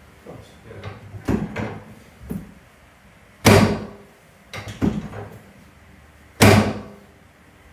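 Chiropractic adjustment on a treatment table: two loud sudden thumps about three seconds apart, with softer knocks and shuffling before each.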